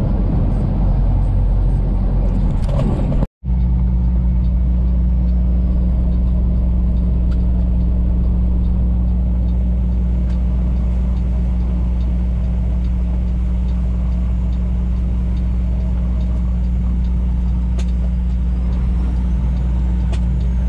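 Semi truck's diesel engine running with a steady low drone, heard from inside the cab along with road noise. The sound drops out briefly about three seconds in and comes back as a steadier, lower drone.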